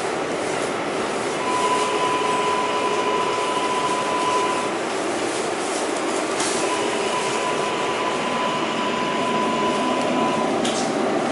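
Ride noise inside an R188 subway car running at speed through a tunnel: a steady rumble of wheels on rail, with a steady high tone that comes and goes. Two sharp clicks stand out, one about halfway through and one near the end.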